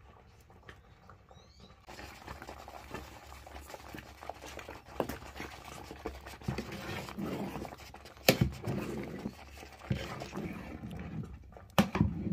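Stirring a steaming pot over a crackling wood fire, starting about two seconds in: the fire crackles and the ladle scrapes and clicks in the pot, with two sharp knocks of the ladle against the pot in the second half.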